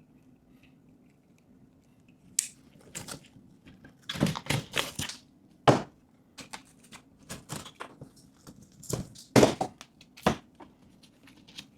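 Cut sheetrock being pushed in and broken away by hand, crunching and scraping in irregular bursts from about two seconds in, with a few sharper knocks.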